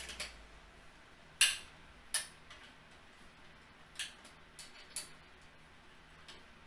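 Scattered sharp clicks and knocks of gaming chair parts being handled and fitted during assembly, about six in all, the loudest about a second and a half in.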